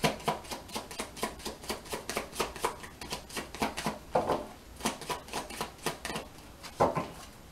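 Tarot cards being shuffled by hand: a quick, irregular run of crisp card flicks and slaps, several a second.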